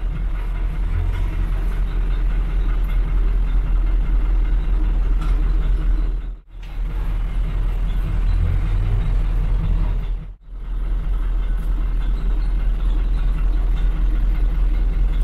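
City bus engine idling, heard inside the passenger cabin: a steady low rumble that cuts out briefly twice.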